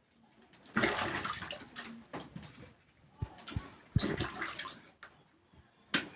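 Water splashing in two bursts, with a few sharp knocks between and after them.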